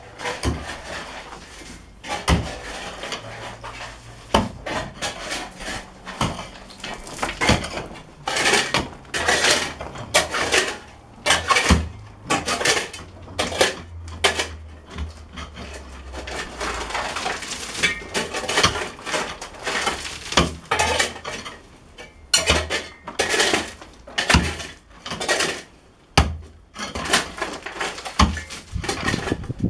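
Pickaxe digging into stony red earth: its head strikes the ground over and over at an irregular pace, roughly once or twice a second, with stones clattering.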